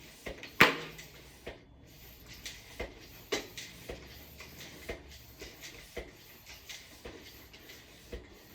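Mountain bike tubeless tire bead popping into place on the rim as the tire is pumped up, a sign the bead is seating properly. Sharp pops and clicks at irregular intervals, the loudest about half a second in.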